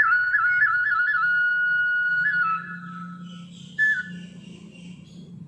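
A single high melodic line on a wind instrument, held mostly on one note with quick ornamental turns, stopping about two and a half seconds in; one short note follows near four seconds.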